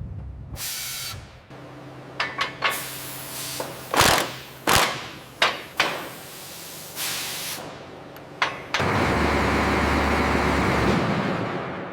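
Workshop clatter: a series of sharp knocks and clanks over a low steady hum, then a loud steady rush of noise with a deep hum for about two seconds near the end.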